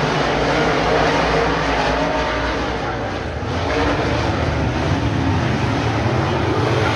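Engines of a pack of dirt-track modified race cars running at speed around the oval, a loud steady drone that dips briefly about three seconds in.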